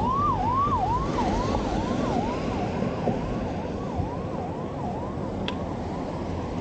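Ambulance siren wailing in fast rising-and-falling sweeps, about three a second, loudest at first and fading as it moves away, over road traffic noise.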